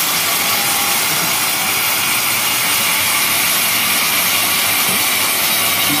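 Homemade band sawmill running steadily, an even loud hiss with no breaks.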